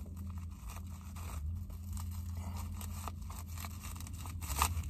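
Kershaw Fraction pocketknife cutting through plastic cling wrap over a cake, with irregular crinkling and scraping of the wrap and a louder crackle near the end.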